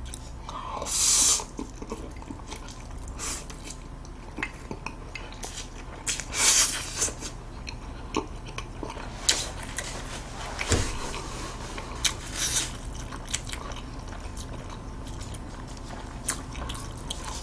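A man slurping a mouthful of Jjajang Buldak stir-fried instant noodles, with a loud slurp about a second in and another around six and a half seconds. Between them he chews close to the microphone, with many short wet clicks.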